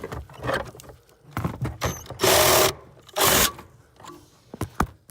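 Power drill run in two short bursts of about half a second each, a little past two seconds in, boring a stud hole through the firewall sheet metal with a dull 3/8 in bit. Handling knocks and clicks fall around the bursts.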